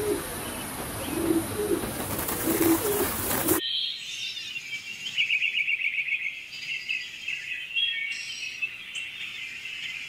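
Emerald dove giving a series of low, soft coos over the steady rush of running water. After about three and a half seconds the sound changes abruptly to other birds chirping high, with a short fast trill.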